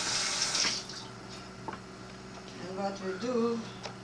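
Kitchen sink tap running as hands are washed under it, shut off less than a second in; then a few small drips and knocks at the sink.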